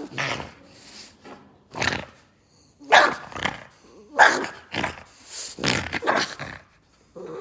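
Boston Terrier growling and giving short barks in a string of bursts while it bites and tugs at a slipper.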